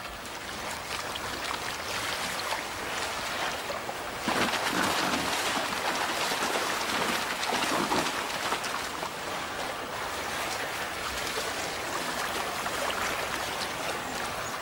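Shallow river running over a stony bed: a steady rush of water, louder from about four seconds in.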